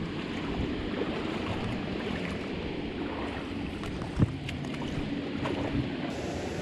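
Creek water rushing steadily, with wind rumbling on the microphone and a single sharp knock about four seconds in.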